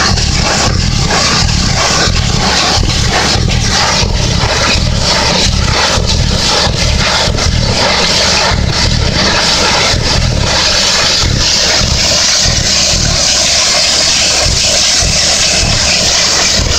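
Horizontal directional drilling rig running a 650 mm hole opener through rock and sand: loud, steady machine noise with a deep drone, a hiss, and a rapid, regular pulsing.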